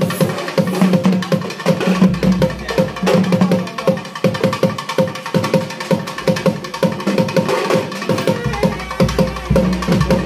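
Traditional festival drum music: fast, dense drumming with sharp, hard strokes and a held note sounding underneath.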